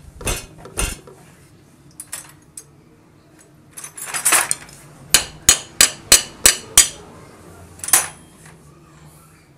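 Metal clinking and knocking as a motorcycle engine's finned cylinder barrel is worked up off its studs and piston by hand: a few clinks, a scrape about four seconds in, then six sharp knocks at about three a second and one more near the end.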